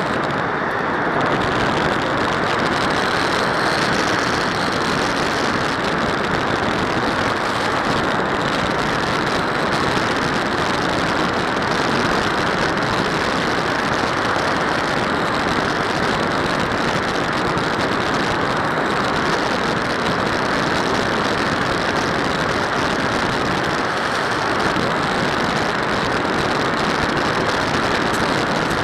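Steady rush of airflow and propeller noise picked up by the onboard camera of a Multiplex Panda Sport electric RC plane in flight. The hiss is constant and loud, with no clear motor whine and no change in level.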